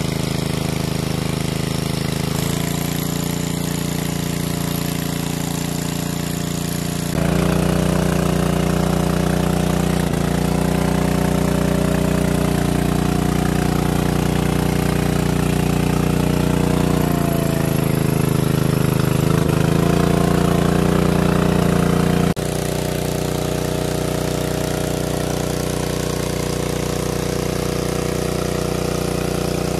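Small engine of a 500cc water pump running steadily. It gets louder about seven seconds in, its pitch wavers a little past the middle, and it drops back to the quieter note about twenty-two seconds in.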